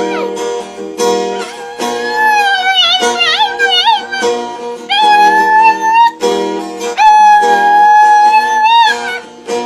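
A dog howling along to a strummed acoustic guitar, holding long wavering high notes that bend up and down, with the longest howls in the second half.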